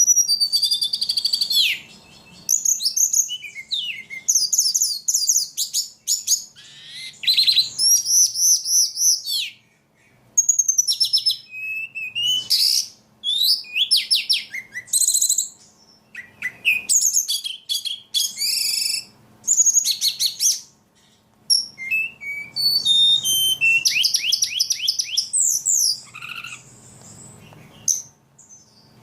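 A songbird singing steadily, with rapid, varied high-pitched phrases of chirps, warbles and trills delivered in bursts with short pauses between them.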